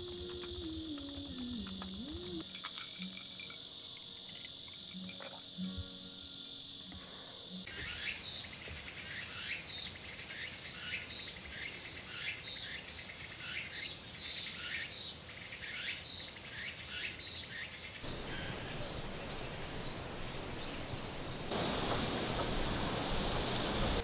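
Summer forest ambience. A steady high insect chorus gives way, about eight seconds in, to calls repeating roughly every 0.7 s from insects and birds. Near the end a steady hiss of rain comes in and grows louder.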